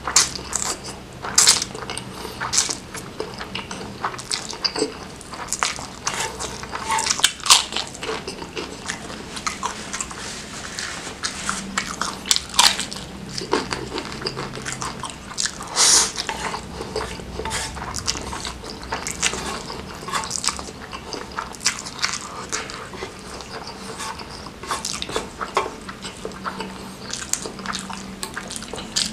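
Close-miked mukbang eating sounds: spicy noodles slurped in, then steady wet chewing with lip smacks and crisp crunchy bites, a dense run of irregular short clicks and smacks.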